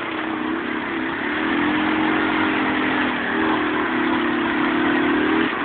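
ATV engine revving hard and held at high revs as the four-wheeler churns through deep mud, its rear tyres spinning and throwing mud. The revs drop off suddenly near the end.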